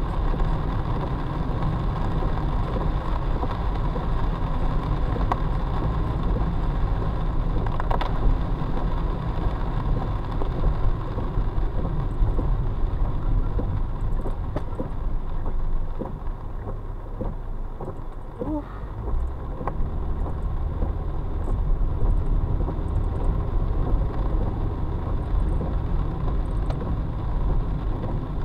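Car driving in the rain, heard from inside the cabin: steady road and tyre noise on wet pavement, easing off for a few seconds around the middle as the car slows in traffic, then building again.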